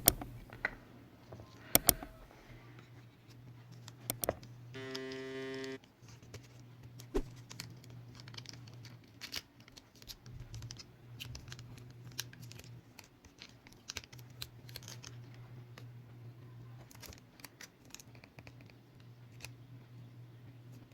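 Small repair tools clicking and scraping on a smartphone's internal parts as a fingerprint cable is disconnected: scattered light taps and scrapes over a low steady hum. About five seconds in, a steady pitched tone sounds for about a second.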